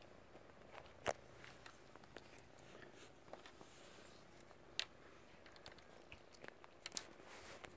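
Near silence, broken by a few sharp clicks, one about a second in and one near five seconds, and a cluster of small ticks near the end.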